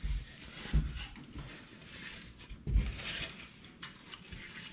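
Rustling of white protective wrapping and handling of a plastic grille as it is pulled out of a cardboard box, with a couple of soft bumps.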